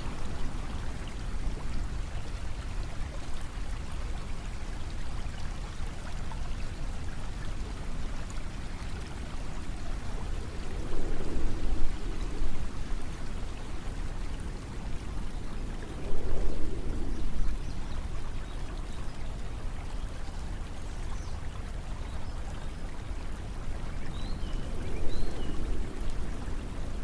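Steady running-water ambience with a low rumble, swelling louder three times, about 11, 16 and 25 seconds in.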